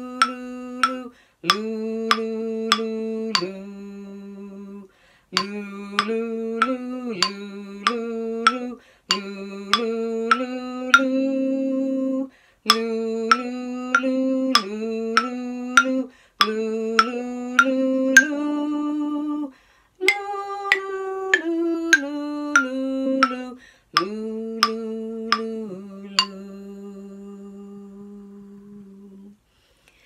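A woman humming a slow, lullaby-like French children's folk tune in phrases, with sharp taps on each beat. The last note is held for several seconds and fades away.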